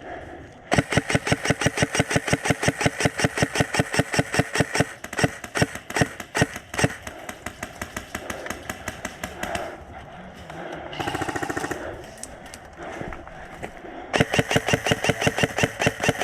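Airsoft rifle firing full-auto: a long rapid string of sharp shots, then scattered single shots, a short buzzing burst around the middle, and another rapid string near the end.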